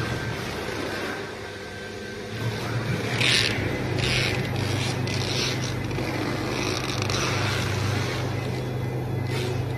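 CNC router with a 6 kW spindle running and cutting wood. A steady low hum runs throughout, and from about three seconds in there are repeated bursts of hissing cutting noise.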